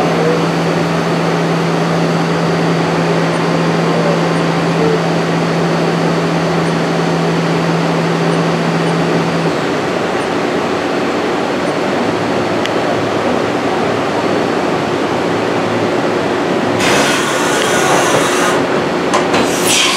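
Haas VF-3SS vertical machining center running with a steady mechanical noise and a low hum that stops about halfway through. Near the end come two bursts of hissing.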